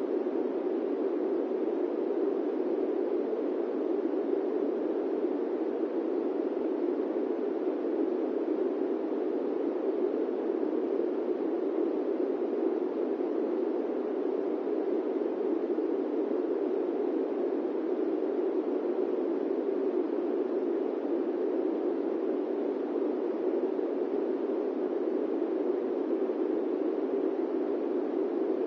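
Steady airplane-cabin white noise: an even, dull rushing hiss that never changes.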